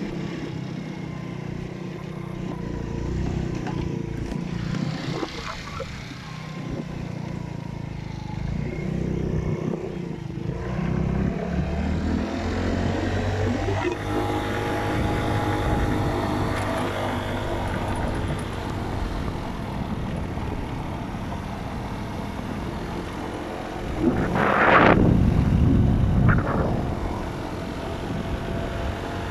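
Dirt bike engine running while riding, its pitch rising and falling with the throttle, with a louder rush of noise about twenty-four seconds in.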